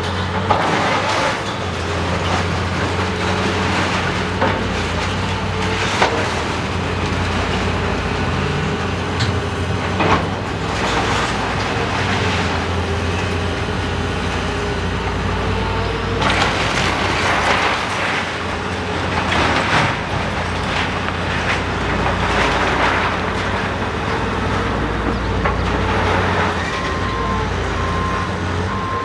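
Caterpillar 330C hydraulic excavator's diesel engine running steadily under load while its demolition grapple tears into a building, with repeated crashes and clatter of falling wood, metal and debris, heaviest about two-thirds of the way through.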